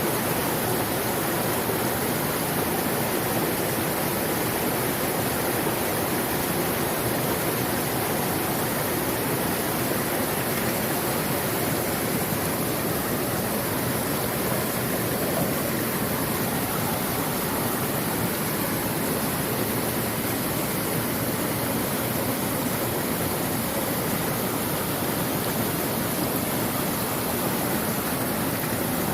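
Mountain stream water rushing, a steady, even noise that does not change.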